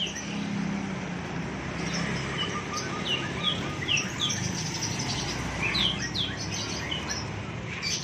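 Many caged birds chirping, short falling tweets repeated throughout, with a brief run of evenly spaced notes a couple of seconds in, over a steady low hum.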